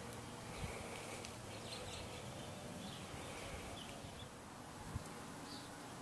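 Faint outdoor ambience with a few faint, short high chirps and two light clicks, one about half a second in and one near the end.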